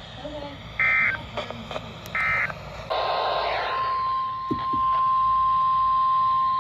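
Two short Emergency Alert System SAME digital data bursts about a second and a half apart. About three seconds in comes a burst of radio static, then the steady single-pitch 1050 Hz NOAA Weather Radio warning alarm tone starts and carries on.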